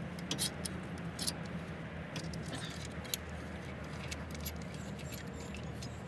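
Light metallic clinks and scraping, with paper-towel rustling, as a steel brake caliper slide pin is handled and wiped clean, over a steady low hum.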